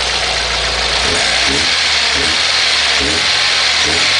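Petrol 1.4 12-valve car engine running with the microphone at the air intake, with loud intake hiss. From about a second in the throttle is blipped about once a second, each blip a short rise and fall in pitch with an intake gulp.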